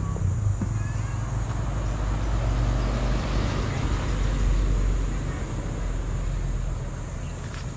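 Steady low outdoor rumble that swells a few seconds in and fades near the end, over a constant high insect buzz.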